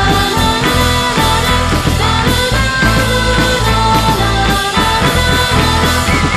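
Indie pop song, a stretch without singing: guitars over steady bass and drums.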